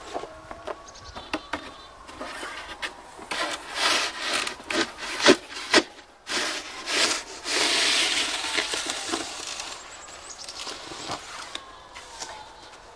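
Wide push snow shovel scraping snow across a driveway, with a long scrape of several seconds about two-thirds of the way through. A few sharp knocks come about five seconds in.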